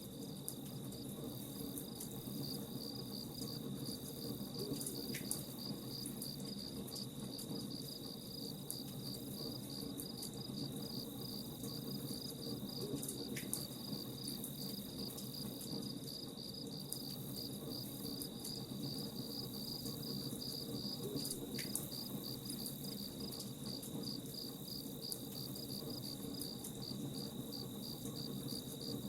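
Crickets chirping steadily in an even, high-pitched repeating rhythm, over a low crackling bed typical of a campfire burning, with a few faint pops.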